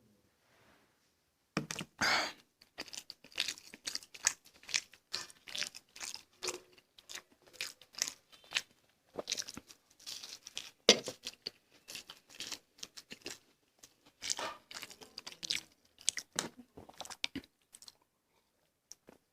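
Close-up chewing and biting of kachori, a fried stuffed pastry, with many irregular crunches and wet mouth sounds. The chewing starts about a second and a half in and stops about two seconds before the end.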